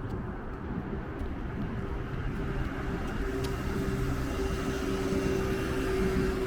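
A vehicle approaching, its steady droning hum growing slowly louder from about two seconds in, over a low rumble of wind on the microphone.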